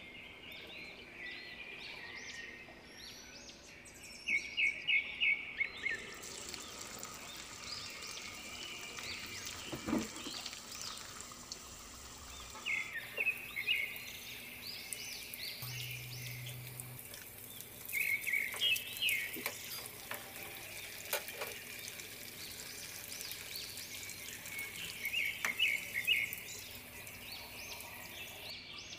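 Spring rolls deep-frying in hot oil, sizzling from about six seconds in. Over it, a bird calls in short rapid chirping runs, four times.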